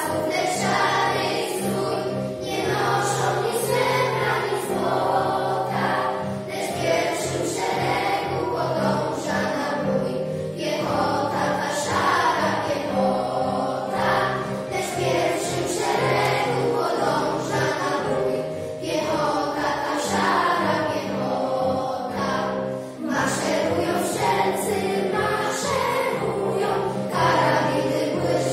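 Children's choir singing a song together, phrase after phrase, over sustained low accompaniment notes that change every few seconds.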